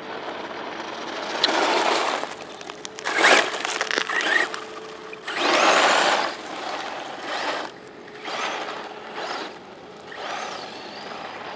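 Brushless electric RC monster truck, a 41,000 RPM motor, driven hard over loose gravel: repeated surges of motor whine and tyre noise as it speeds past and turns, the loudest about six seconds in.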